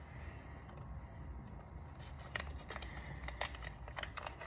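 Handling noise from small parts and their packaging on a workbench: scattered sharp clicks and light crinkling over a low steady background rumble, with the clicks coming more often in the second half.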